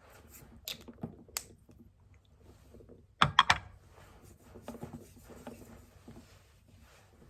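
Light clicks and taps, with a short, louder clatter of several clicks a little over three seconds in.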